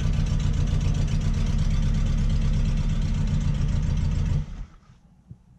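2003 Ford Focus's 2.0-litre four-cylinder engine idling steadily through a gutted catalytic converter, with a slight misfire that the owner puts down to a bad coil pack; it shuts off abruptly about four seconds in.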